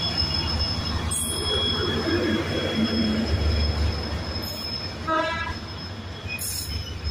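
Passenger coaches of an arriving train rolling past, the wheels squealing in two steady high tones over a low rumble. A brief pitched note sounds about five seconds in.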